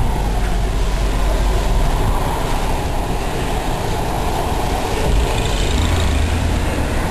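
Blizzard wind blowing hard: a loud, steady rushing noise with a heavy low rumble of wind buffeting the microphone.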